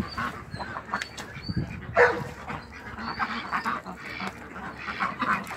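A flock of domestic ducks quacking and calling, with one louder call about two seconds in.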